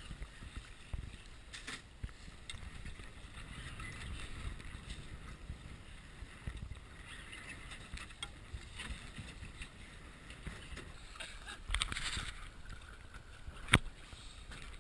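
Choppy sea water lapping and sloshing against a small boat, with scattered light knocks of gear on the boat and one sharp click near the end.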